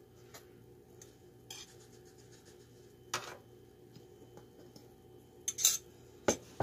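A metal spoon clinking and scraping against a glass measuring cup and a foil baking pan as melted butter is spooned over rolls. A few separate clinks, with the loudest two near the end.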